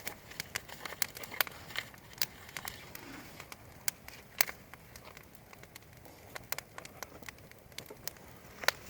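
Wood fire crackling: irregular sharp pops and snaps of burning wood over a faint hiss, with a few louder pops scattered through, the loudest near the end.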